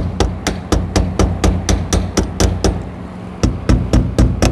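Small wooden-handled hammer tapping rapidly on a vinyl seat cover over the edge of a bolt hole in a metal seat frame, about four blows a second with a short pause a bit after three seconds. The blows against the frame's edge cut the seat-bolt hole through the vinyl.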